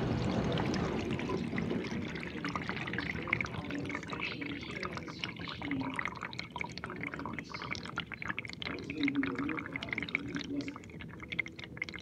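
Water splashing and spraying inside a running GE dishwasher. A steady rush thins after about two seconds into irregular splashes and drips.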